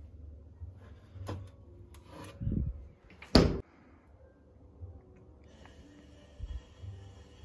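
Red BELLE retro mini fridge being handled: a few clicks and rubbing as its shelf and door are touched, then the door shuts with one sharp, loud thud about three and a half seconds in.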